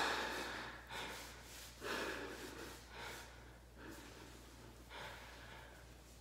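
A man breathing hard, out of breath, about one heavy breath a second, the breaths growing quieter.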